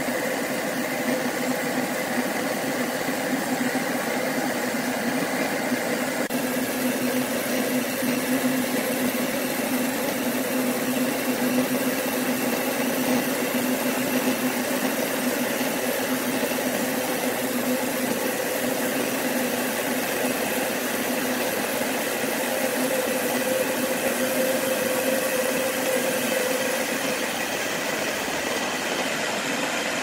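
Sawmill machinery running with a steady, unchanging hum.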